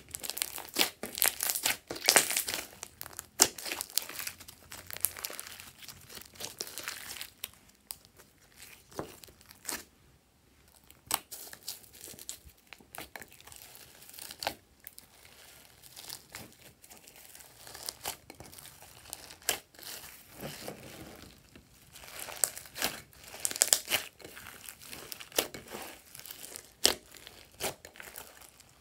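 Glossy slime being squished and kneaded by hand: irregular crackling and squishing with sharp little clicks. It is busiest at the start and again about three-quarters through, with a quieter stretch a third of the way in.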